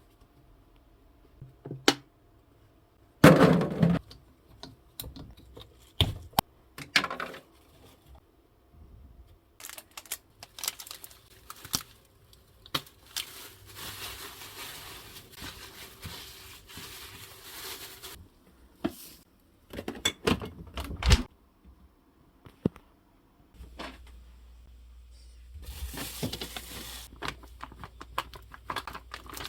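Kitchen handling sounds: scattered knocks and clatters of utensils and containers, with crinkling like plastic packaging. About halfway through comes a few seconds of steady hiss, and near the end a low steady hum sets in.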